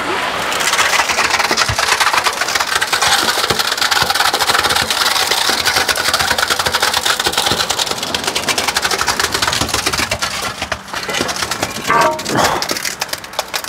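Wet concrete pouring from a concrete pump's hose into a foundation trench: a dense, gravelly crackling and rattling of aggregate that eases off about eleven seconds in.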